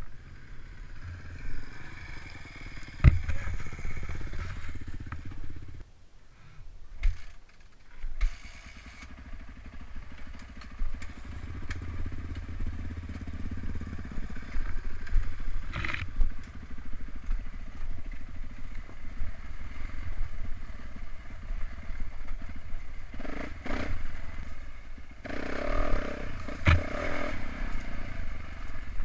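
450 cc dirt bike engines, a Yamaha YZ450 and a Kawasaki KX450, running and revving unevenly while being worked up a rocky climb. Sharp knocks and clatter of rocks and bike parts come about 3 s in, around 7–8 s, at 16 s and near the end. The engine sound dips for a few seconds around 6 s, then rises again.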